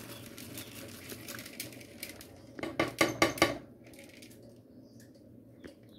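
Washed wheat grains poured from a bowl into a stainless steel pot of boiling water, the water bubbling. Past the middle, a quick run of about six clinks as the bowl strikes the steel pot.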